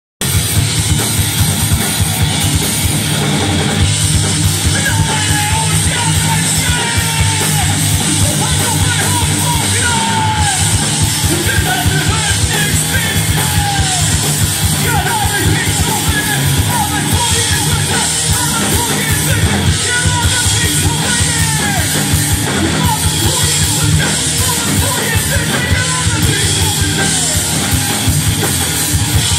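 A loud live rock band playing, with drums, guitars and yelled vocals coming in a few seconds in.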